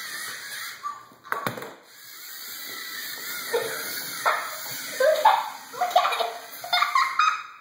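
A child's voice calling out in short wordless calls or laughs through the second half, with a single sharp knock about a second and a half in.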